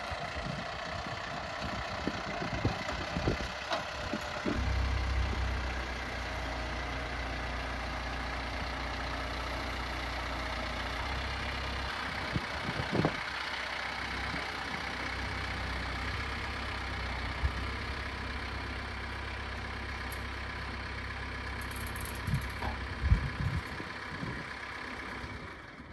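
Compact farm tractor's engine running steadily while its forks hold a pallet of solar panels up at roof height, with a few short knocks and clunks.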